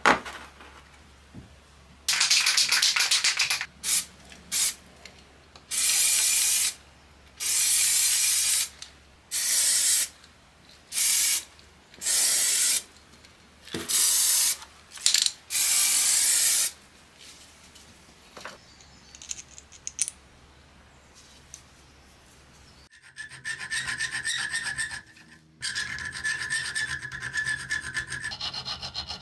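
A small metal part of an old coal iron rubbed flat on wet abrasive paper: about ten separate scraping strokes with short pauses between them. About 23 seconds in, a hand file starts rasping quickly and steadily across a steel bar clamped in a vise, with a brief break a few seconds later.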